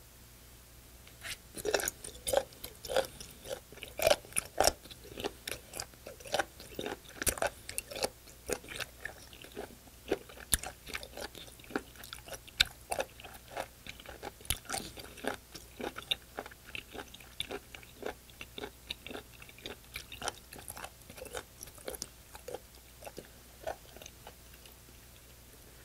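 A person chewing raw sea cucumber close to the microphone: a long run of quick, wet clicking bites starting about a second in, loudest early on and growing softer later.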